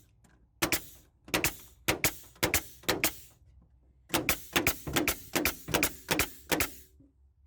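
Nails being driven into a wooden furring strip: a string of sharp knocks, about five spaced half a second apart, then after a short pause a faster run of about ten, three or four a second.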